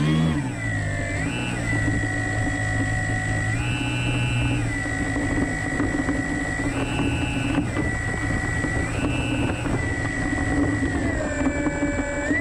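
Remote-control scale T-6 Texan model's motor running at low throttle as the model taxis, a steady whine under a low hum. Three times the whine steps up in pitch for about a second as the throttle is opened briefly.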